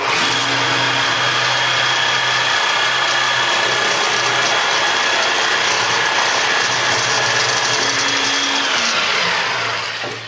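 Festool jigsaw running at a steady speed, cutting into a kitchen worktop with a steady whine. Near the end it is switched off and winds down, its whine falling in pitch.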